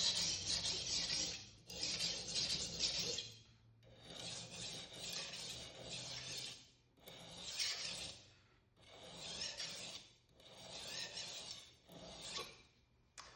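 Steel knife blade rasping back and forth on a 400-grit Atoma diamond plate in low-angle thinning strokes: a run of gritty strokes about a second each, with short pauses between them.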